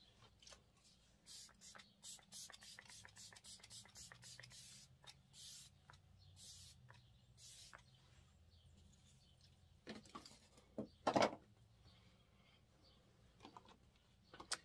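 Makeup brush rubbing in quick, faint, scratchy strokes for several seconds, then a few louder handling knocks, the loudest about eleven seconds in.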